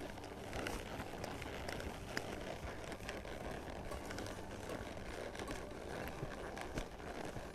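A horse walking under a rider on a sand arena, its hooves landing softly with faint, irregular ticks over a steady low rumble.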